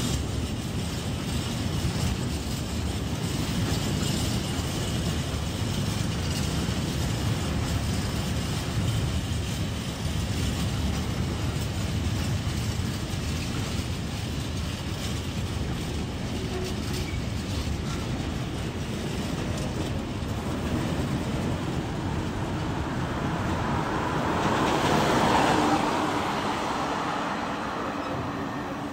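Long freight train of high-sided open wagons rolling past close by: a steady rumble of wheels on rail with faint clicking over the rail joints. The noise swells louder and fades again near the end.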